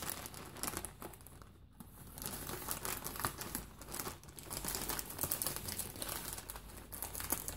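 Plastic courier mailer bag crinkling and rustling as it is handled and opened, a dense crackle with a short lull about a second and a half in.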